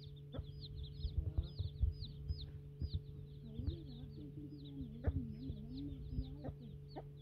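Baby chicks peeping continuously, a quick run of high chirps several times a second. A hen's low wavering call joins in for about three seconds mid-way, with a few short knocks scattered through.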